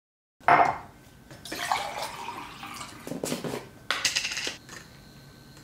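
Clinks and knocks of a drinking glass, a plastic supplement tub and its lid being handled and set down on a kitchen counter, several separate short clatters.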